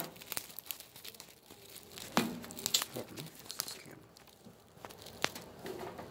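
Plastic packet of dried shrimp from a cup of instant noodles crinkling and tearing as it is handled and opened, with scattered light clicks and taps; the sharpest tap comes about two seconds in.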